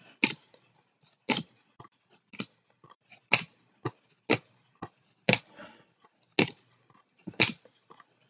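Trading cards being flicked through by hand one at a time, each card giving a short, sharp snap or tap, about a dozen in all at an uneven pace of one every half second to a second.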